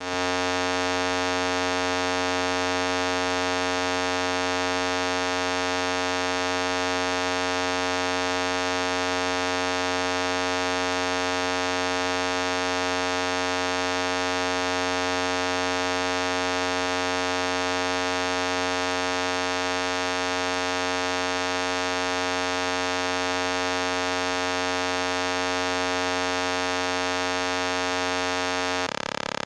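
A loud, steady buzzing tone with many overtones, unchanging for almost the whole time, then switching abruptly near the end to a different, slightly quieter steady tone.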